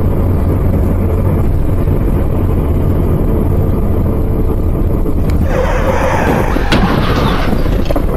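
Steady engine and road rumble heard inside a moving car's cabin, then about five seconds in a car crash: a loud crunching, scraping noise lasting a few seconds, with sharp bangs near the end.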